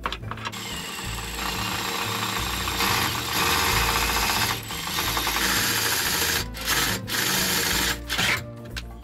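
Power drill boring pilot holes into a metal rail on a car's underbody. It starts about half a second in, gets louder about three seconds in, and stops briefly several times near the end.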